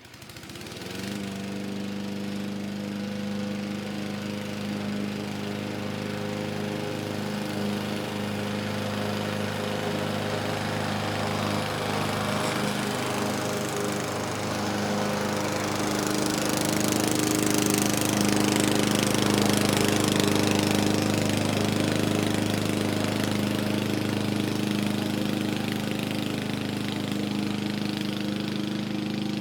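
Lawn mower engine starting up and settling into a steady run within the first second. It runs on at an even pitch, louder for a stretch in the middle.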